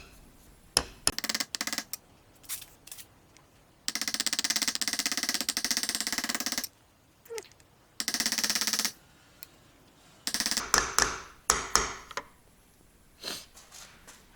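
Hammer tapping a part into a Toyota 4A-GE distributor during its overhaul. A few single taps come first, then a long run of rapid taps about four seconds in, a shorter run a little later, and more scattered strikes near the end.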